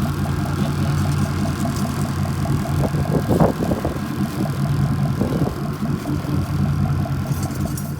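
Boat engine idling steadily with a fast, even pulse, and a brief louder rise about three seconds in.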